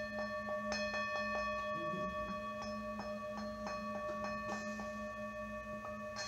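Brass singing bowl being rubbed around the rim with a wooden mallet. It rings with several steady overtones over a low, wavering hum, while the mallet clicks and chatters against the rim every half-second or so.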